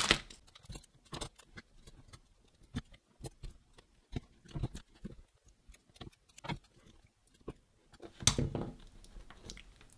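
Hands sticking Kapton tape over a ribbon cable on a small circuit board and pressing it down: scattered small clicks, ticks and rustles, with a louder stretch of handling about eight seconds in.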